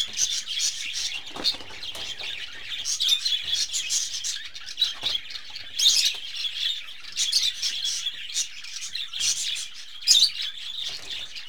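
Pet budgerigars chirping and chattering continuously, with a few louder chirps about six and ten seconds in.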